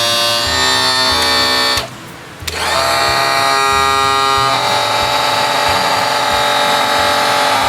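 Electric tilt-and-trim pump motor of a 1992 Johnson 60 hp outboard running with a steady whine. It stops for about half a second around two seconds in, then runs again, its pitch shifting about halfway through. It is being run while the trim fluid is topped up, with a gurgly sound that the owner wonders may be air bubbles.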